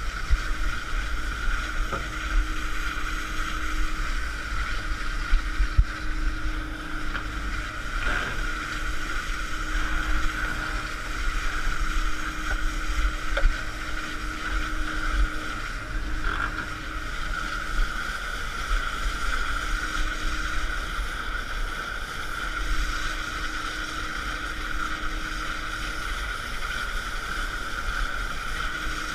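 Working boat under way at sea, its machinery running with a steady high whine. A lower hum comes and goes every few seconds, and wind rumbles on the microphone.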